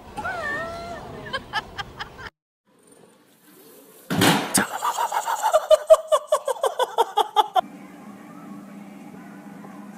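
A loud thump about four seconds in, then a quick run of short pitched bursts. After that a treadmill starts running with a steady motor hum.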